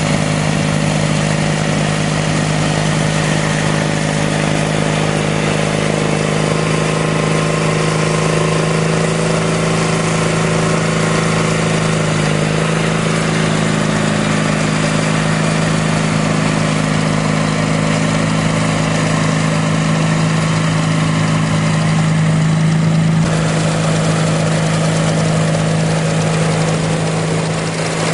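Sears Roper GT18 garden tractor's 18 hp Briggs & Stratton horizontal twin engine running steadily, driving its shaft-driven snowblower.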